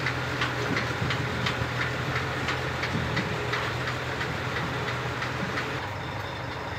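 A heavy engine idling steadily under a regular clicking, about three clicks a second, from a hand chain hoist being pulled to lift a set of dual truck wheels. The clicking dies away about four seconds in.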